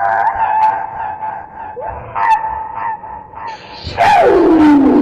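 Heavily processed, honk-like cartoon voice in a sneeze build-up. A long held high 'aah' is followed by a few short rising calls. About four seconds in comes the loudest part, a cry that slides steadily down in pitch.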